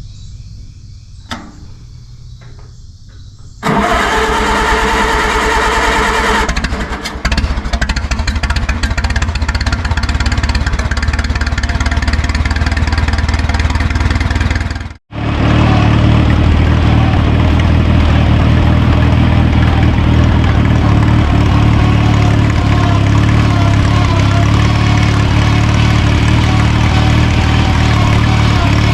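Case tractor engine with a new straight exhaust pipe, starting up about four seconds in and running loudly. There is a sudden brief gap about halfway, after which it runs steadily.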